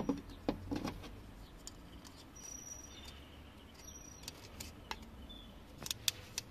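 Faint clicks and light handling noises as a new oiled rubber seal is worked onto a plastic oil filter housing cap with a small pick, a cluster of sharper clicks about six seconds in. A few short high chirps sound faintly behind.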